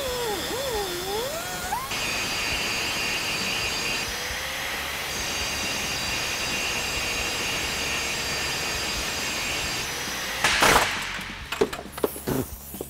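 Angle grinder with a cutting wheel cutting through rusted steel frame rivets, its motor whine sagging and recovering in pitch under load in the first two seconds, then cutting steadily. About ten and a half seconds in comes a very loud short burst, then the grinder stops and a few sharp metal knocks follow.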